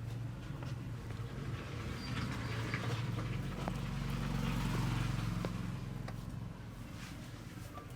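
A motor vehicle's engine running, its hum swelling a few seconds in and then fading as it passes, with scattered faint clicks over it.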